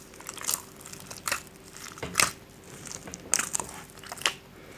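Soft, egg-enriched bala al-sham choux dough being kneaded by hand, with irregular wet squelches and slaps about once a second as the egg is worked in.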